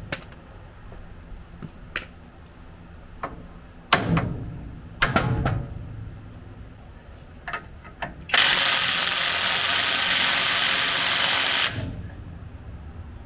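Metal parts knocking and clanking, with two louder bursts of impacts about four and five seconds in, then a power tool running hard for about three and a half seconds and stopping suddenly, as a stuck suspension fastener on the truck is worked loose.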